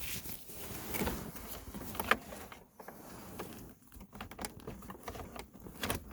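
Hands working a car's shifter assembly and its wiring into place under the center console: scattered plastic and metal clicks and knocks with rustling, and one sharp click about two seconds in.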